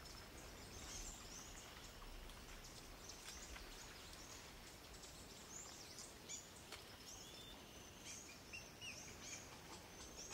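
Faint forest ambience: scattered short, high bird chirps over a low, steady hiss, the chirps coming more often in the second half.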